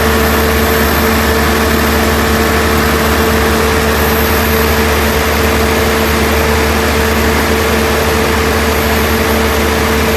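Volvo diesel engine of a GSW 280 diesel generator set running at a constant speed under a load test: a loud, even drone with steady held tones and no change in speed.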